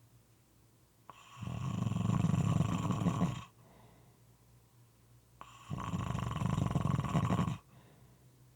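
Moist snoring: two long snores of about two seconds each, with a quiet pause of about two seconds between them.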